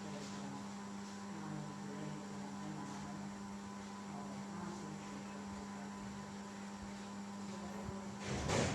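Steady electrical hum, with one brief, loud noise near the end.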